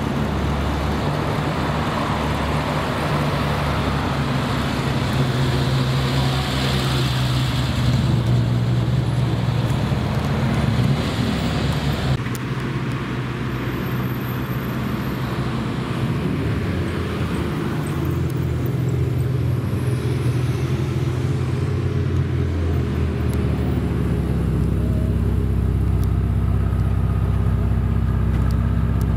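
Supercar engines running at low revs as the cars pull away, with a steady low engine note that shifts several times as one car gives way to another. Busier, louder engine sound comes around a quarter of the way in.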